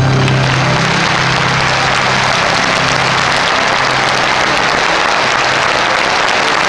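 Large concert audience applauding at the end of a song, with the band's last low held note fading out underneath during the first few seconds.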